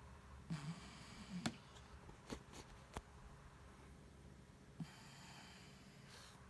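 A sleeping 12-year-old pet snoring: two soft snoring breaths about four seconds apart. A few sharp clicks fall between them.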